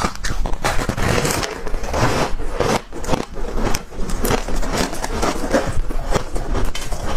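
Close-miked mouth chewing freezer frost: a steady, rapid run of crisp crunches.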